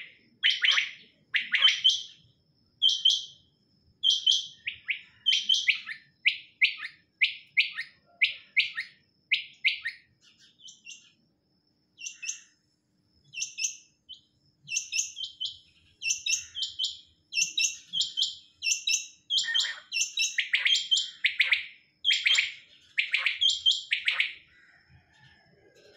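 Caged quails calling: short, sharp, high notes repeated in quick runs, thinning out briefly about halfway through before picking up again.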